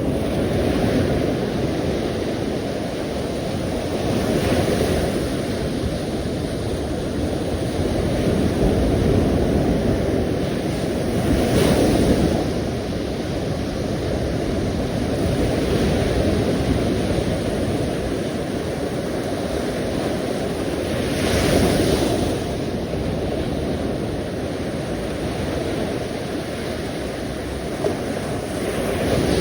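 Sea waves washing on the shore: a steady rushing wash, with a wave breaking every five to ten seconds. Wind rumbles on the microphone.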